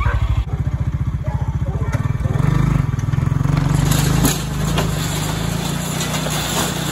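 Side-by-side utility vehicle's engine running with an even throb, then speeding up about two seconds in as it tows a stack of pallet boards on a strap. The wood scrapes and knocks along the ground.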